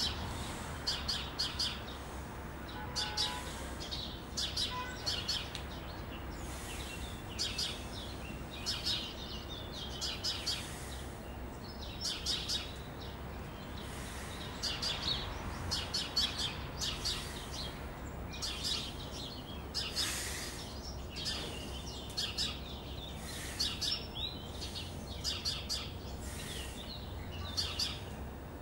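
Small birds chirping, short high chirps in quick runs repeating over and over, above a low steady hum.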